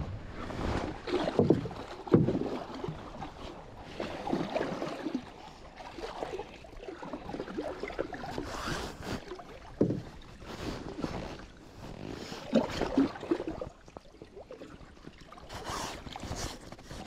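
Irregular knocks, bumps and handling noises aboard a small fishing boat; the loudest come about two seconds in and again around ten seconds in.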